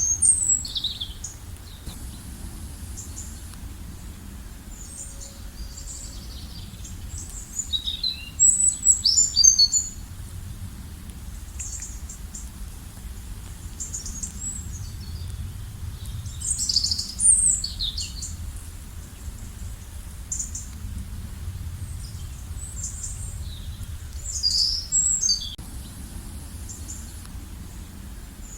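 Songbirds singing in bursts of quick, high chirps and trills, several times over, above a low steady rumble of outdoor background noise.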